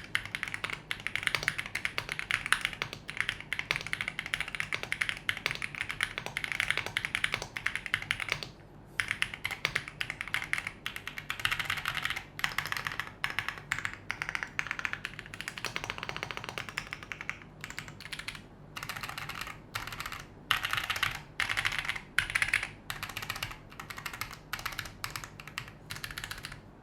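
Typing test on an Epomaker P75 aluminium-bodied mechanical keyboard with Epomaker Wisteria tactile switches and PBT double-shot cherry-profile keycaps: a fast, continuous run of keystrokes with a somewhat thocky sound. The typing pauses briefly about eight seconds in, and in the second half it becomes sparser, with short gaps between groups of strokes.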